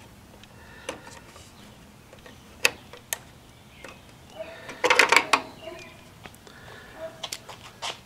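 Sharp plastic clicks and light rattling as wire-harness connectors are handled and pushed onto a washing machine's electronic control board, with a louder burst of clatter about five seconds in.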